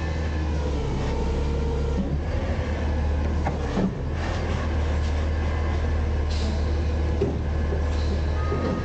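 Autocar/Heil front-loader garbage truck's engine running steadily as the truck rolls forward slowly, with a couple of short knocks about four seconds in.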